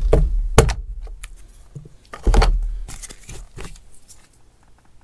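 Plastic interior trim on a pickup cab being pried loose with a tool. A couple of sharp knocks and clicks come at the start as push pins and clips pop free, a duller thump follows about two and a half seconds in, and lighter clicks come after it.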